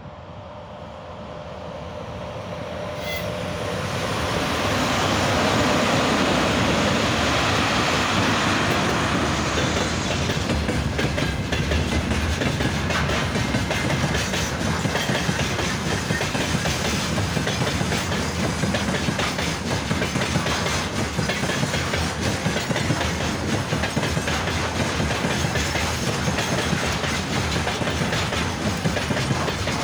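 Freight train of tank cars and open wagons rolling past behind an electric locomotive. It grows louder over the first five seconds or so as the locomotive comes up and passes, then settles into a steady rumble of wheels with a rhythmic clickety-clack of wagon wheels over the rail joints.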